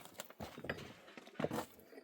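A few irregular knocks and clatters, the loudest about one and a half seconds in.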